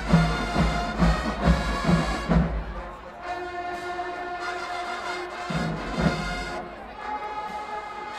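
Marching band playing: bass drums pound about twice a second under the brass for the first couple of seconds, then the horns hold long sustained chords with the drums mostly dropping out, with one more drum hit a little past halfway.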